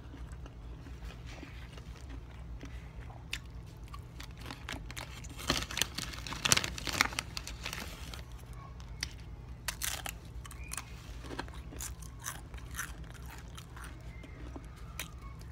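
A person chewing food close to the microphone, with crisp crunching bites and mouth clicks. The crunching is loudest and densest about six to seven and a half seconds in.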